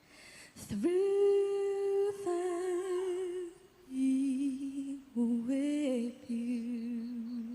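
A young woman singing soft, wordless held notes with vibrato, unaccompanied, in about four drawn-out phrases with short breaths between them.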